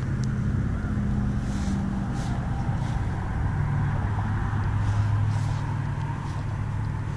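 Steady low hum of a motor vehicle engine over a continuous rumble of wind on the microphone. The engine's pitch shifts a little partway through.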